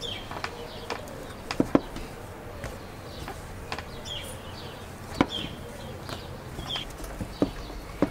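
Wooden rolling pin rolling dough on a wooden board, with a few sharp wooden knocks as the pin meets the board. Short high bird chirps come now and then in the background.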